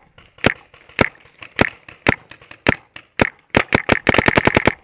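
Shocker RSX electropneumatic paintball marker firing: sharp single shots about twice a second, then a rapid burst of about eight shots near the end.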